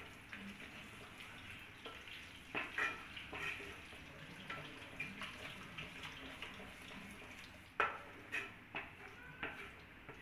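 Wooden spatula stirring a thick yogurt-and-spice masala in a nonstick kadai: irregular soft scrapes and knocks against the pan, the sharpest near the end, over a faint low sizzle of the cooking masala.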